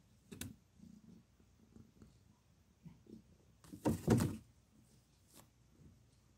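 Cat purring in slow low pulses, broken about four seconds in by a short, loud burst of rustling and thumps as the cat brushes against the cardboard box.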